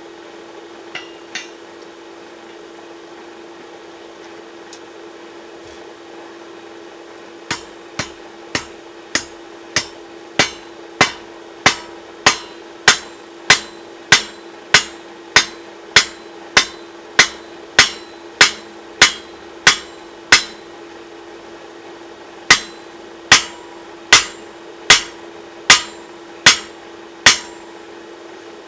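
Hand hammer striking steel being forged: after a few quiet seconds, steady evenly paced blows about one every 0.6 seconds, a pause of about two seconds, then more blows until near the end. A steady hum runs underneath.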